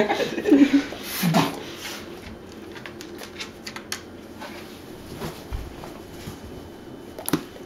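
Basset hound's claws clicking and tapping on a tile floor as she moves about and settles, with a couple of short low vocal sounds in the first second or so, the loudest part; after that mostly quiet with scattered clicks.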